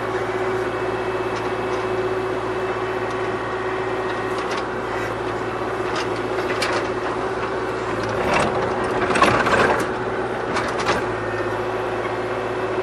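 Kubota KX040 mini excavator's diesel engine running steadily while the bucket digs into compacted soil, with scattered scrapes and knocks. The loudest scraping comes about eight to ten seconds in.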